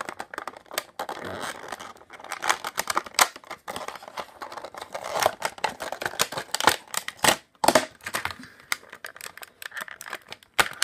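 Clear plastic blister packaging being handled and pried open, crackling with many sharp, irregular clicks as hands work a small toy wagon out of it.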